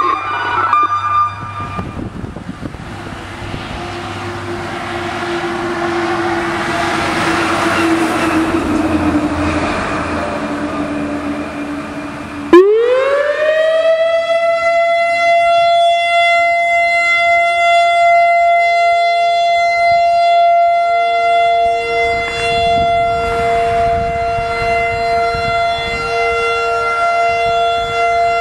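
Whelen WPS 3016 electronic outdoor warning siren starting a steady alert tone. It comes in sharply about twelve seconds in, glides quickly up to pitch and holds there, and a second, lower siren tone slides up and holds a few seconds later. Before it there is a rush of noise that swells and fades.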